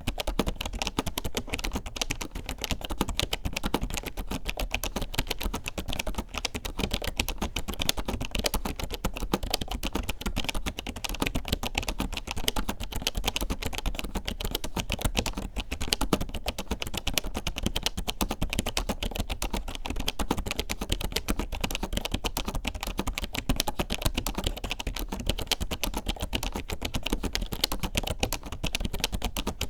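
Continuous fast typing on a vintage keyboard with Alps KFNR-style inverted rubber buckling sleeve membrane switches: a dense run of key clicks and clacks.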